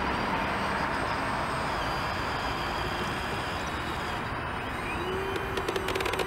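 Road traffic passing close by: steady tyre and engine noise from a van going past. About five seconds in, a steady engine tone joins it, followed by a quick run of clicks.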